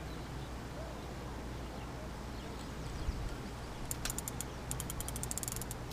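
Fishing reel clicking in a fast, quickening run of sharp ratchet clicks from about four seconds in, over a steady low rumble.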